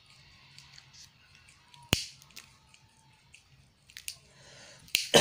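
Faint, sparse crunching clicks of a pet rabbit nibbling a leaf, with one sharp click about two seconds in.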